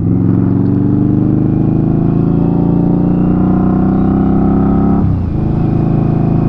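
Indian Scout Bobber's 1133 cc V-twin engine pulling under acceleration, its pitch rising steadily. About five seconds in it dips briefly for an upshift and then climbs again.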